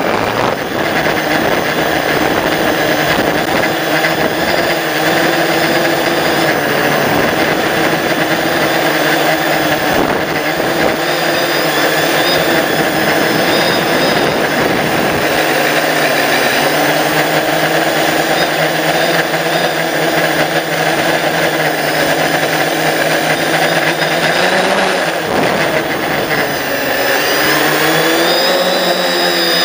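Drone's electric motors and propellers whining close to the onboard camera, several tones at once that shift in pitch, with a rising sweep near the end.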